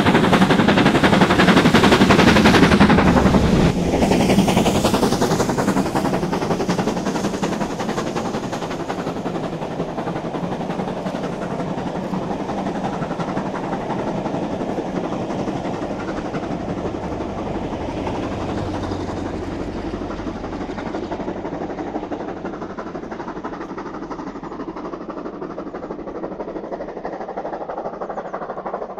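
BR Britannia class 4-6-2 steam locomotive No. 70013 working hard with a loud, rapid exhaust beat as it passes close by, about four seconds in. Its train of coaches then rumbles past and slowly fades into the distance.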